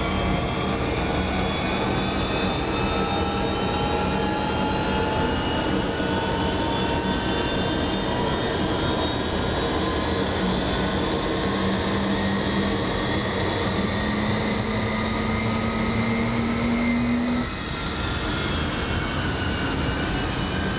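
Kongsberg KG2-SL3 gas turbine running, diesel-fuelled: a steady rushing noise with several whining tones that climb slowly in pitch as it gains speed. About 17 seconds in, the level dips briefly and the tones change, with one high whine falling.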